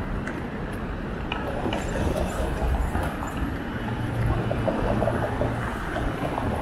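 Ambient background of a city walk: a steady low hum under general bustle, with a few faint scattered clicks.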